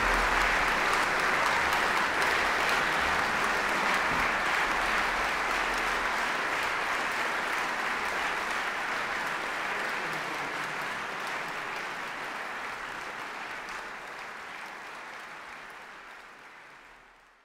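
Concert hall audience applauding with dense, steady clapping that fades gradually away to silence near the end.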